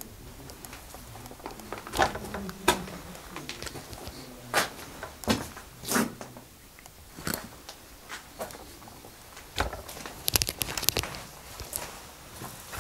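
Footsteps on a gritty, debris-covered concrete floor inside a small concrete chamber: irregular single steps, then a quick cluster of scuffs about ten seconds in.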